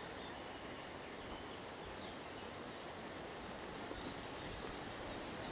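Steady outdoor background noise: an even hiss with a faint, high, steady tone and no clear animal calls.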